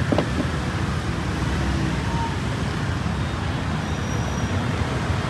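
Steady low rumble of street traffic, with one light tap near the start.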